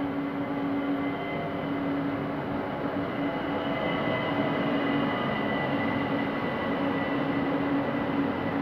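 ÖBB Talent electric multiple unit rolling into the station, its electric traction drive giving a steady whine with a low hum over the rumble of the wheels.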